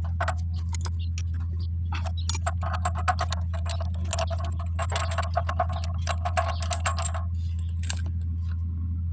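Metal tools clicking and clinking in quick runs as a spark plug is taken out of a small generator engine to be checked for a misfire. Under the clinks runs a steady low hum.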